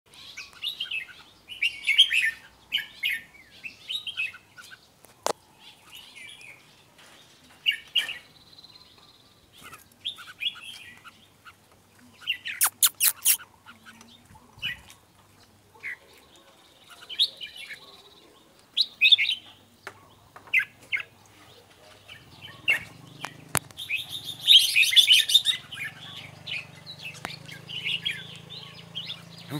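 Red-whiskered bulbuls singing: short warbled phrases repeated with pauses between them, mixed with sharp high chirps. A faint low hum comes in toward the end.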